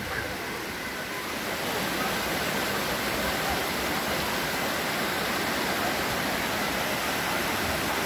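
Water of a tall mountain waterfall, about 90 metres high, pouring and cascading over rocks: a steady, even rushing hiss.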